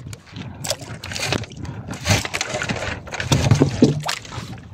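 Fish and fishing line being handled on a small wooden boat: irregular rustles, taps and knocks as fish are pulled off the hooks and the line is wound, with a short low hum about three and a half seconds in.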